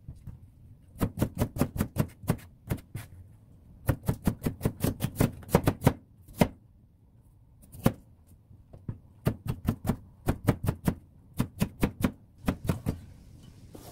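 Chef's knife slicing raw potatoes on a plastic cutting board, each cut ending in a sharp tap of the blade on the board. The cuts come in quick runs of about five or six a second, with short pauses between runs.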